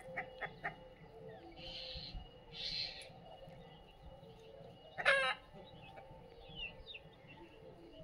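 Free-ranging desi chickens calling: a few short clucks at the start, a loud short harsh squawk about five seconds in, and a few small high chirps from chicks near the end.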